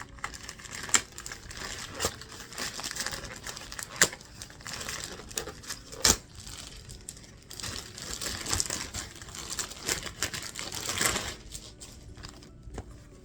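Crinkling and rustling of a costume being handled and put on, with a few sharp clicks or knocks scattered through it, dying down near the end.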